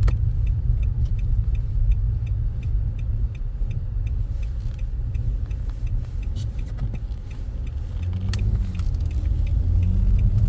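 Low, steady rumble of a car heard from inside the cabin while driving on snowy streets, with a light regular ticking about two to three times a second. Near the end there is a sharp click and a brief hum that rises and falls.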